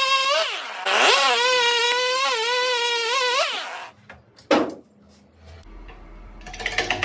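Chainsaw engine revving and cutting into an oak burl in two long passes, its pitch wavering under load, stopping about four seconds in. A single knock follows, then the lathe motor starts to hum low as the burl spins up.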